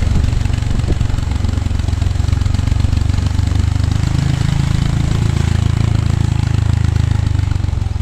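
Motorcycle engine running while riding, a steady low rumble whose note rises a little about halfway through.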